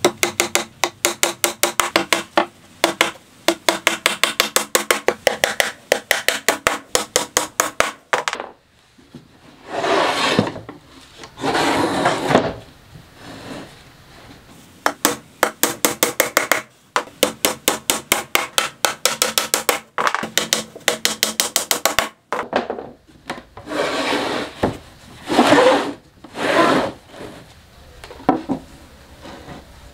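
Two long runs of rapid, even hammer blows on a hollow plywood box, each knock ringing through the panels. Between the runs come several second-long scraping sounds of plywood on plywood.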